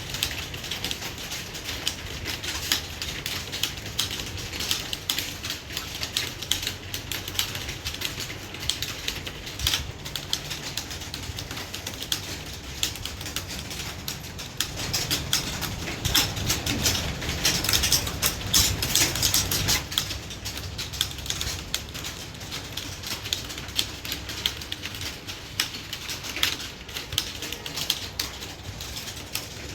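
Fast, continuous typing: a dense, uneven run of key clicks with no pauses, getting a little louder and busier for a few seconds past the middle.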